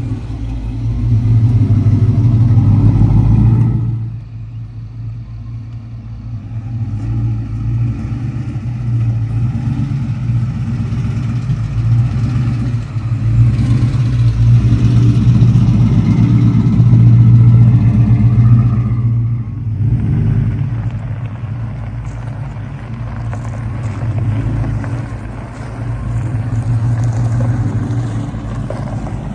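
A motor vehicle's engine running, its steady low hum swelling and easing off several times as it is driven.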